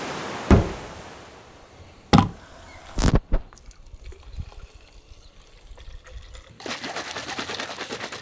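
Sea wash fading out, then a few sharp knocks of a plastic canister and glass shaker bottle being set down and handled, and near the end water splashing into the bottle as it is poured.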